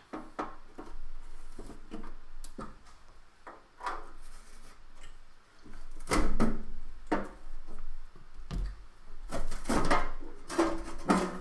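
Screws being undone and the oscilloscope's metal side panel being worked loose and handled: scattered clicks and knocks, with louder clunks about six and ten seconds in.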